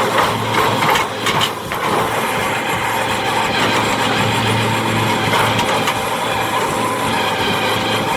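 A heavy machine's engine running steadily, with a few sharp knocks in the first two seconds.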